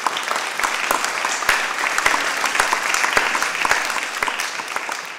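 Audience applauding: many hands clapping together, easing slightly near the end.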